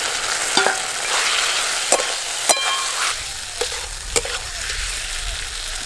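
Fried potato and green tomato pieces sizzling in a kadai of spice paste fried in mustard oil until the oil has separated, stirred with a spatula that scrapes and clicks against the pan about five times.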